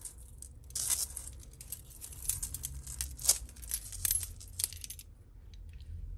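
Metal costume jewellery clinking and jangling as it is handled: bangles and chains knocking together in a run of sharp small clinks, busiest in the first five seconds, then falling quiet.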